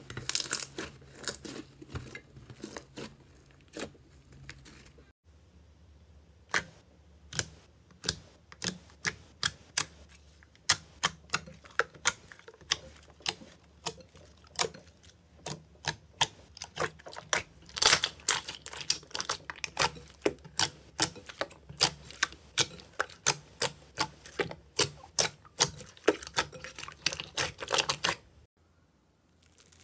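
Slime being squeezed, stretched and poked by hand: a run of sharp, sticky clicks and pops, several a second. It is denser and louder after about five seconds in and cuts off near the end.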